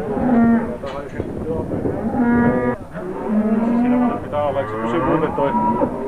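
Several Holstein dairy cows mooing repeatedly, their calls sometimes overlapping.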